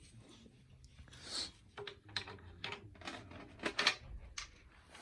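Irregular metal clicks and light rattles of snare-drum hardware being handled as the snare wires are fitted back onto a marching snare drum. The loudest click comes a little before the end.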